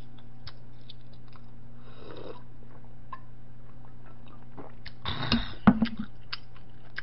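Quiet eating and drinking mouth sounds: small clicks and a swallow while drinking from a drinking bowl. About five and a half seconds in comes a short breath out and a sharp knock as the bowl is set down on the table, over a steady low hum.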